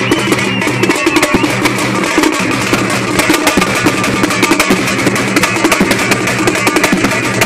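A Tamil street drum troupe drumming fast and loud, with many strokes a second on large hand-carried drums, over a steady pitched tone low down.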